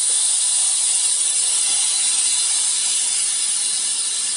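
Steady, loud hiss of air from a TBK-408A automatic OCA laminating machine, easing off slightly near the end.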